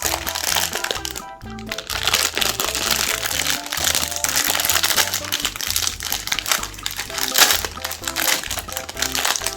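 Chocolate-coated Magnum ice cream bars crackling and crunching as a meat grinder crushes them, a dense run of crackles from about two seconds in, over background music.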